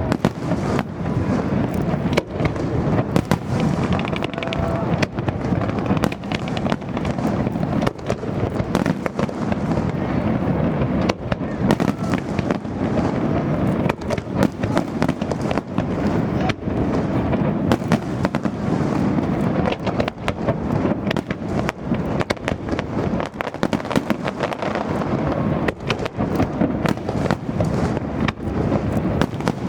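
An aerial fireworks display: a dense, continuous barrage of shells bursting, crackling and booming, many reports overlapping with no let-up.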